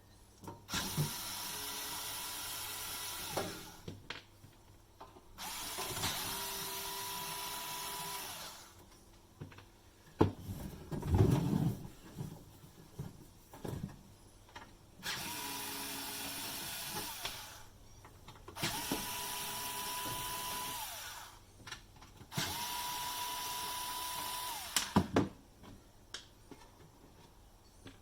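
Electric drill-driver running in five short spurts of about two to three seconds each, its motor whine rising as each spurt starts and falling as it stops, as it drives screws out of the UPS casing. Between the second and third spurts come a few loud knocks and clunks of parts being handled.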